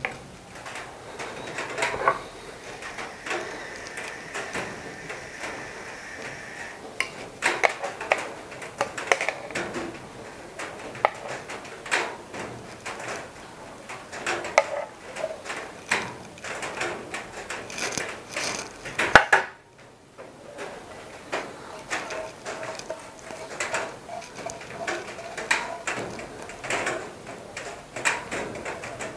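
Metal tongs clicking and clattering against a nonstick frying pan and a ceramic bowl as chicken pieces are served out, followed by a spatula scraping curry sauce from the tipped pan into the bowl. Irregular clinks and knocks come throughout.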